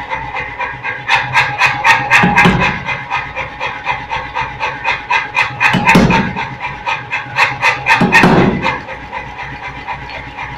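Power hammer striking hot steel in a closed forging die: a fast, even run of blows, about four or five a second, with a few heavier thuds among them, over the steady running of the hammer's motor. The blows stop near the end and the machine keeps running.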